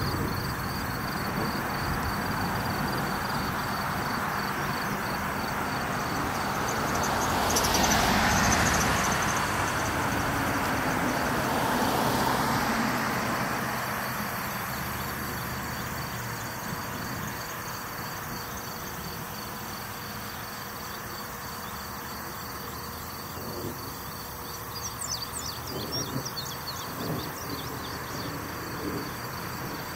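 Cars passing on a road, the tyre noise swelling and fading about eight and twelve seconds in, over the steady pulsing chirr of crickets. A few quick high chirps come near the end.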